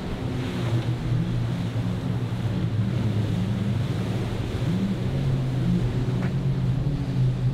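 Motorboat engines running in the inlet, their hum wavering up and down in pitch, over a steady rush of waves and wind on the microphone.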